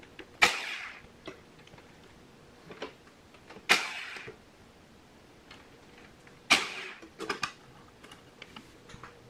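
Hand socket wrench working bolts out of a cast-iron tractor transmission housing: three sharp metal clacks about three seconds apart, each ringing briefly, with fainter clicks and light ratchet ticking between them.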